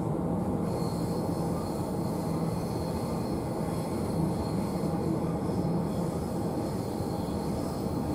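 Steady running rumble of an electric passenger train, heard from inside the carriage. A faint, high steady squeal from the wheels comes in about a second in.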